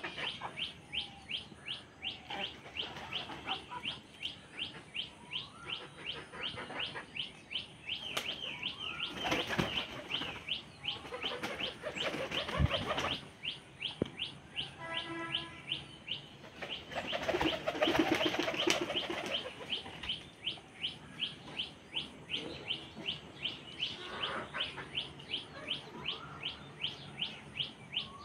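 A bird chirping over and over, a short falling chirp about two to three times a second, with a few louder rustling bursts around ten and eighteen seconds in.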